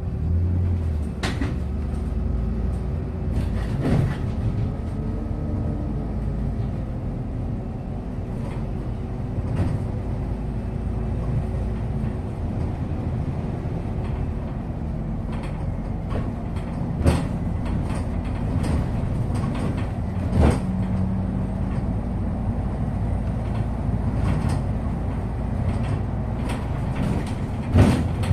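MAZ-215 articulated city bus heard from inside the cabin while driving: a steady engine and road rumble with a faint drivetrain whine that shifts in pitch about five seconds in, and a few sharp knocks and rattles from the body.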